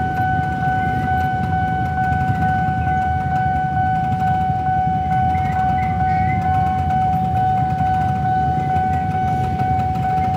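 Railway level-crossing warning alarm sounding one steady, unbroken high tone while the barriers are down, over a low rumble of idling motorcycles and traffic.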